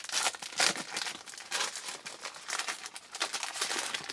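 Plastic wrapper of a baseball card pack being torn open and crinkled, in irregular rustling surges.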